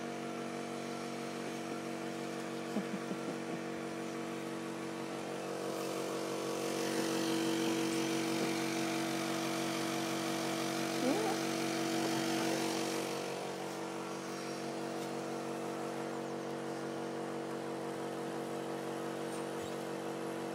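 A motor running steadily with a constant, even hum made of several tones, growing louder for several seconds in the middle.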